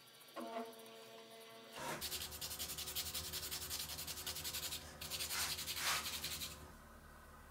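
Sandpaper rubbing the end of a small hand-carved wooden tube in quick back-and-forth strokes, starting about two seconds in and stopping near the end, loudest just before it stops. Before that, a carving knife scrapes the wood briefly with a squeaky edge.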